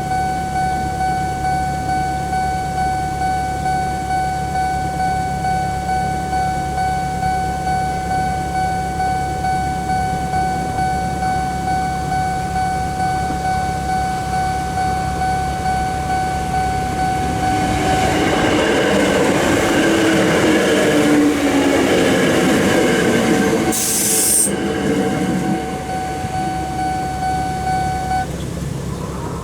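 Japanese level-crossing warning bell ringing a steady, rapid kan-kan-kan. About two-thirds of the way in, a train passes through with wheel rumble and squealing from the rails, plus a brief high hiss. The bell stops shortly after the train has gone.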